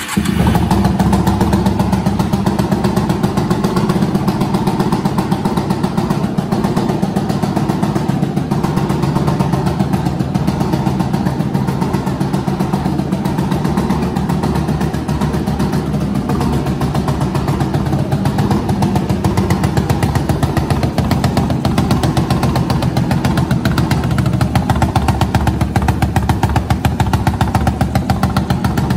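Bored and stroked Yamaha YFZ450 single-cylinder four-stroke engine of about 516 cc in a shifter kart, freshly started and idling steadily.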